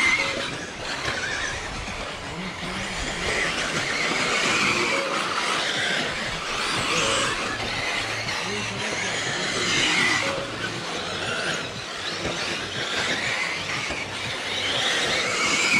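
Several electric radio-controlled racing cars lapping the track together, their motors whining and rising and falling in pitch as they accelerate and brake.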